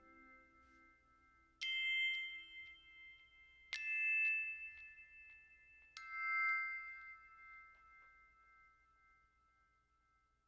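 Three struck chime notes in background music, about two seconds apart, each ringing high and clear and fading slowly until the music dies away.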